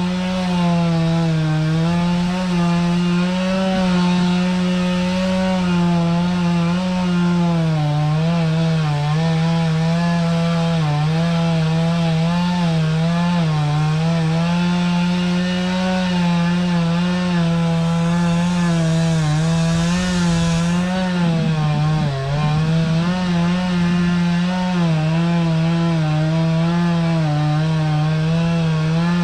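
Two-stroke chainsaw running continuously at high speed while cutting into pine wood, its engine pitch wavering and dipping briefly a few times as the chain bites.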